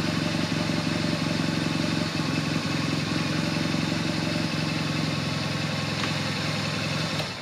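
BMW GS boxer-twin motorcycle engine idling steadily, then switched off near the end, dying away within a fraction of a second.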